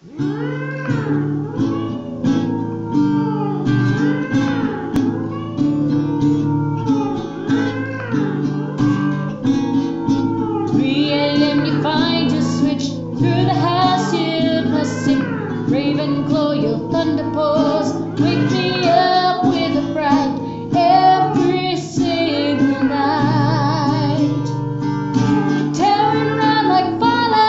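A comic song: a high singing voice over instrumental backing, the sung melody going on throughout.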